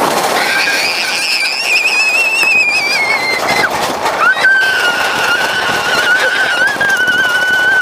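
Two long, high-pitched screams from riders on a suspended roller coaster at speed, over steady rushing wind and ride noise. The first wavers and fades after about three seconds; the second starts about a second later and holds steady.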